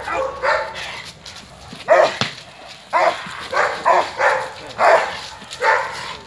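Police guard dogs barking at a decoy holding a bite sleeve during bite-work training: about ten barks in irregular bursts.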